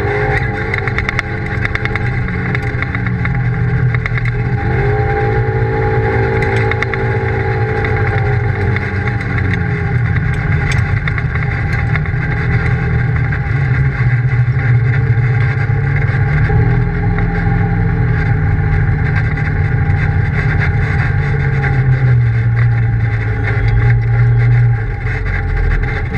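Polaris RZR side-by-side's engine running on the move, heard from inside the cab, its pitch rising and falling as the throttle is worked, over a steady rush of wind and tyre noise. Near the end it holds a steady note, then eases off.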